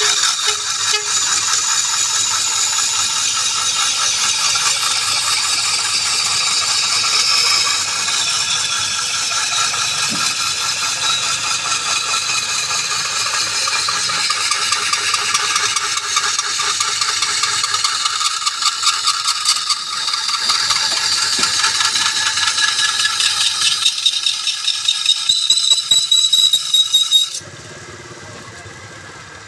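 A power tool running steadily on metal with a rattle, its motor giving a steady whine, until it cuts off abruptly near the end.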